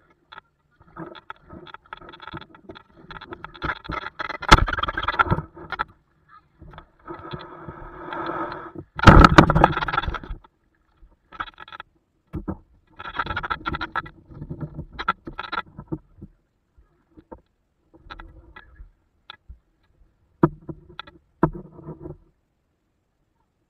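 Canoe paddling: irregular splashing and rubbing of paddles in the water and against the canoe, with louder bursts about 4 and 9 seconds in and two sharp knocks on the hull near the end.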